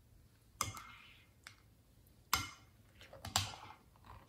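Thick glossy slime being stirred and pulled with a metal spoon in a glass bowl, making sticky clicks and squelches; three louder pops stand out, about a second apart, with smaller clicks between.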